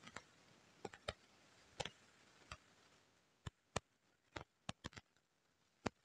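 A dozen or so sharp, irregular clicks and taps as the black plastic base of a stainless steel electric kettle is handled and fitted against the kettle body.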